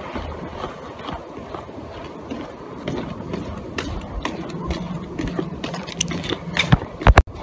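Footsteps on wooden pier planks mixed with rubbing and knocking handling noise against the chest-mounted camera, with a few loud knocks near the end.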